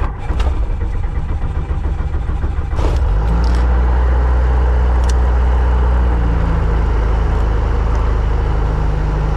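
Robinson R22 helicopter's piston engine running, uneven for the first three seconds or so and then settling into a loud, steady drone.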